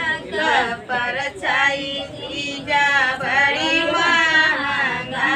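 A voice singing, with long wavering held notes.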